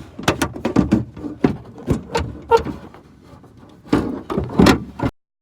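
Irregular clicks and knocks of car door parts being handled and fitted while the door is put back together. The sound cuts off suddenly near the end.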